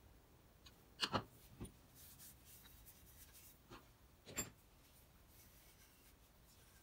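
Handling sounds of a restored Stanley No. 5 cast-iron bench plane and a screwdriver on a workbench: a quick double knock about a second in, a few lighter clicks and a faint scratchy rub, and another knock a little past the middle as the plane is lifted.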